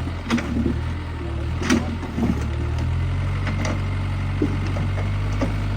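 Heavy diesel engine of an excavator running steadily, its pitch stepping up about three seconds in, with a few short knocks in the first two seconds.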